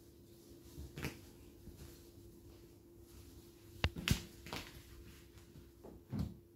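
Cats scuffling on a bed: a few scattered taps and soft thumps of paws and bodies, the loudest a quick pair about four seconds in and a duller thump near the end.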